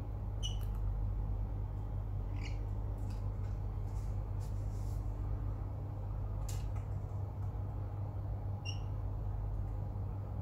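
Caged lorikeets giving four short, high squeaks spread through the stretch, with a few faint clicks between, over a steady low hum.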